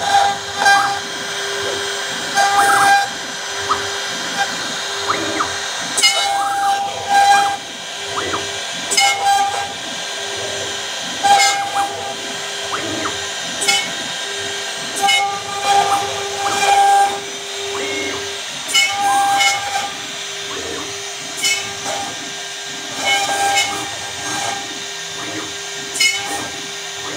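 CNC router spindle running at 24,000 rpm with a steady whine while a 6 mm conical V-bit engraves lettering into acrylic at a 3000 mm/min feed. Short higher-pitched tones come and go every second or two as the cutter works along the letters.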